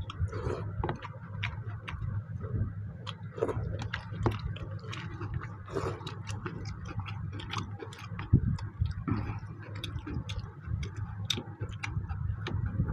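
Close-up eating sounds of mutton curry and rice eaten by hand: many quick, irregular wet chewing and lip-smacking clicks, with fingers working food on steel plates, over a steady low hum.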